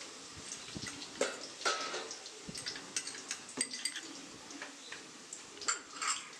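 Spoon clinking and scraping against a small glass bowl and a steel kadai as spice paste is knocked out into the pan, a string of irregular sharp clinks.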